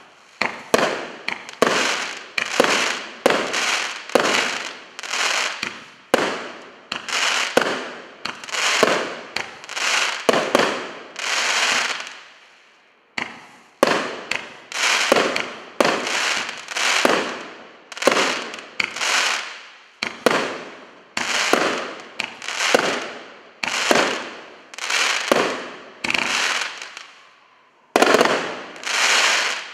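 A 25-shot 1.2-inch consumer fireworks cake firing its shots one after another, about one a second. Each shot is a sharp bang that fades over about half a second, with a short pause about twelve seconds in.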